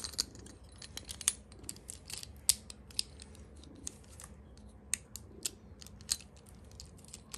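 Small hard-plastic Beyblade parts clicking and tapping as they are handled and fitted together: a string of sharp, irregular clicks, a few of them louder than the rest.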